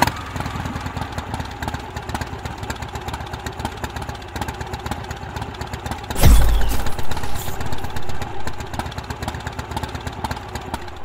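Motorcycle engine idling with a rapid, even putter. About six seconds in a deep boom hits, and the engine then runs louder and less evenly.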